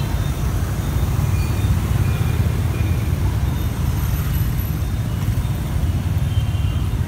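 Dense motor-scooter and car traffic at a busy city junction, heard from a motorbike waiting in it: a steady low rumble of many small engines, with a few faint short horn toots.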